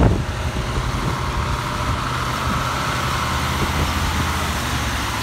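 Heavy truck's diesel engine running as it passes on a rain-wet road, its tyres hissing through the spray; the hiss swells and fades over the middle few seconds. A sharp knock right at the start.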